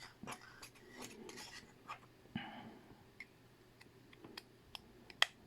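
Faint scattered clicks and taps of small hard objects being handled, with a sharper click about five seconds in.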